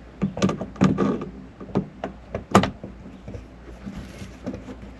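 Lock hardware being handled and fitted on a Go Fast Camper: a string of sharp clicks and knocks, the loudest about two and a half seconds in, with fainter taps after.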